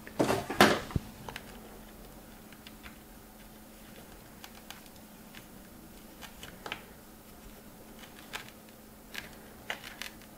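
Scattered light clicks and small scrapes of metal bonsai pliers and tie-down wire being worked at a small pot of gritty substrate. A louder clatter comes in the first second.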